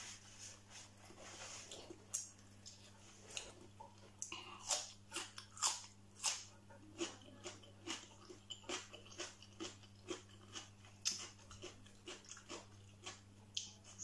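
A person chewing and biting food close to the microphone: an irregular string of short crunches and wet mouth clicks, a few a second.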